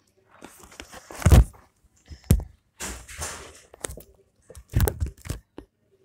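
Irregular thumps and rustling close to the microphone, three of the thumps heavier than the rest, over a faint steady low hum.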